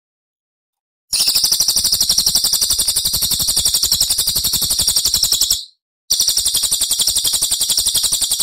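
Recorded songbird giving a loud, very high-pitched trill of rapid repeated notes: masteran bird song played to train competition songbirds. One long trill starts about a second in and runs about four and a half seconds, then a second trill follows after a short break.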